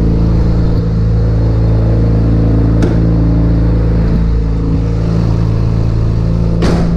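Mazda RX-7 FD's 13B rotary engine idling steadily on a cold start, warming up after about three months of sitting. A faint click about three seconds in and a thump near the end.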